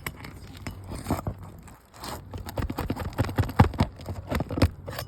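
Gritty crunching and scraping of asphalt roof shingles being worked by hand or tool: a few scrapes at first, then a dense run of sharp crackles and clicks in the second half.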